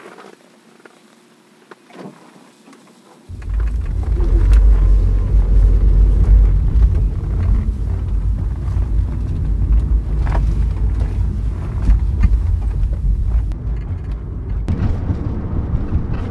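2008 Toyota Prius on the move: a low rumble starts suddenly about three seconds in and carries on, with a few sharp clicks on top. This is the knocking the owner hears from the top of the front strut tower, a suspension noise that new struts, strut mounts and insulators have not cured.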